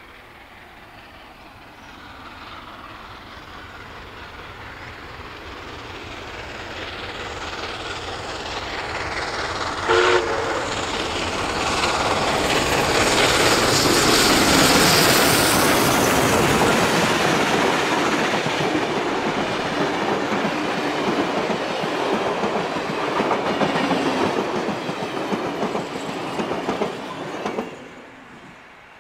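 Steam locomotive 5917, a 59 class 2-8-2, approaching and passing with its train, growing steadily louder. About ten seconds in, a short whistle blast sounds. The carriages then clatter past over the rail joints, and the sound falls away suddenly near the end as the last carriage goes by.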